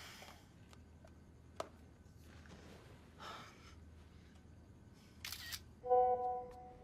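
Faint rustles and clicks, a short hiss about five seconds in, then a single pitched beep with overtones, the loudest sound, fading within a second.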